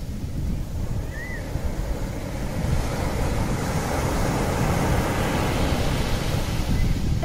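Rushing wind-and-sea ambience with a deep, unsteady rumble, growing slowly louder.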